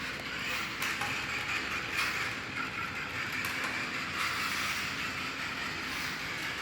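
Toy-grade Jada Toys RC cars running, a steady whirring noise from their small electric motors and wheels on the ground.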